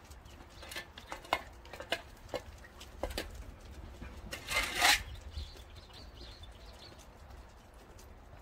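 Scattered light clicks of Jindo dogs' claws on asphalt, with one brief harsh scrape about four and a half seconds in.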